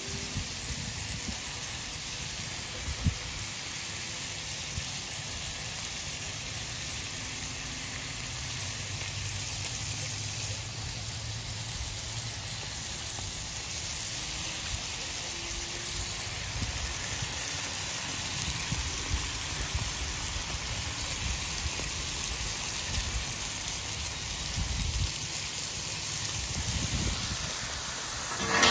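Butter and bacon-wrapped sandwiches sizzling steadily on a Blackstone flat-top griddle over low heat, with a few faint knocks.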